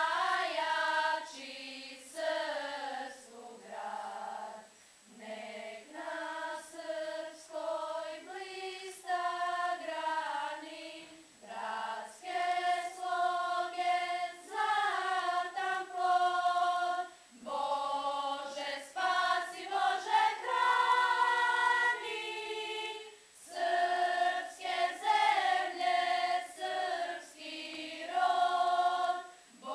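Girls' school choir singing unaccompanied, in phrases of a few seconds with short breaks between them.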